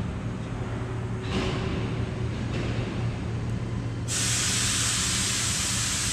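A single-cylinder diesel forklift engine running steadily with a low hum, and about four seconds in a loud hiss starts suddenly and keeps going.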